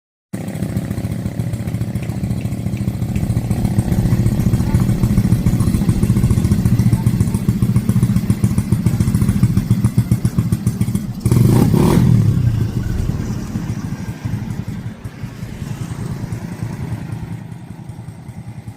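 Wind buffeting the microphone: a loud, low, rumbling roar that starts abruptly, swells in a strong gust a little past the middle, then eases off toward the end.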